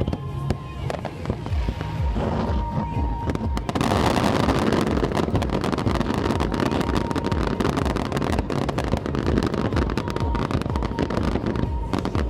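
Aerial fireworks bursting and crackling. About four seconds in they build into a dense, continuous crackling barrage.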